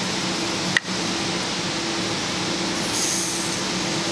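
Large-kernel Retumbo rifle powder poured from a plastic cup into a 3D-printed funnel and down into a brass rifle case: a soft sandy hiss of kernels sliding and trickling, over a steady background hum and hiss. A sharp click comes a little under a second in.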